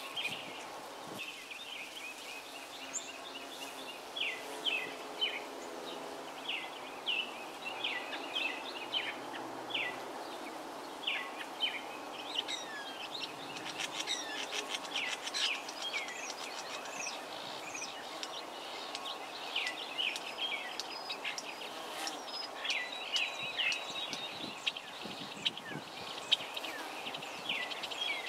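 Many short bird chirps and twitters, the loudest sounds, over a steady hum of many bees working a flowering holly tree.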